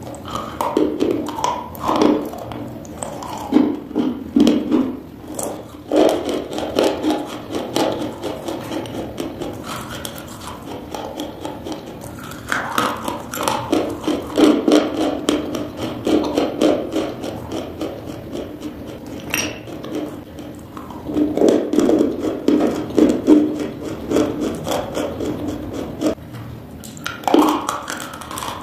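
Close-miked chewing of blue chalk lumps: crisp, dense crunching and grinding in the mouth that comes in louder spells.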